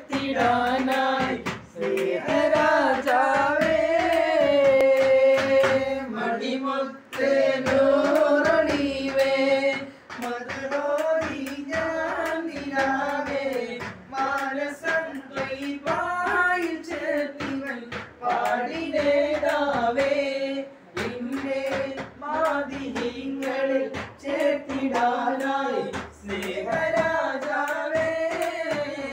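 Men singing an Islamic devotional song together in one melodic line, with steady hand clapping keeping the rhythm.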